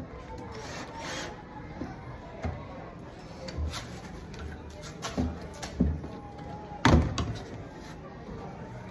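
A handful of sharp knocks and bangs at irregular intervals, the loudest about seven seconds in, over faint background voices.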